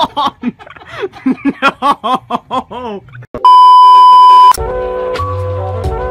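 A person's voice in a quick string of short rising-and-falling cries, then about a second of a loud, steady TV test-pattern beep that cuts off suddenly, followed by music with held tones and a low pulsing bass.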